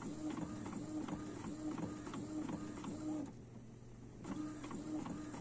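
Epson XP-255 inkjet printer printing: the print head carriage shuttles back and forth in a fast, even rhythm, pauses for about a second a little past the middle, then starts again.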